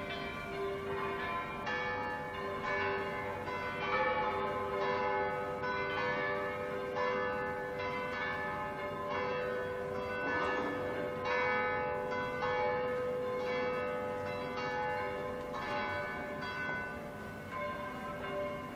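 Church bells pealing, struck over and over at roughly two strikes a second, their tones ringing on and overlapping.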